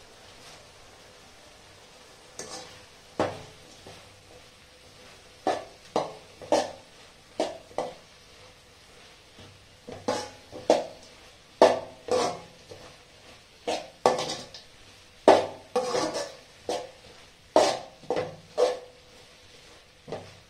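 Steel ladle stirring and scraping onions, tomatoes and spice powders in an aluminium kadai: irregular metallic clanks and scrapes against the pan, starting about two seconds in.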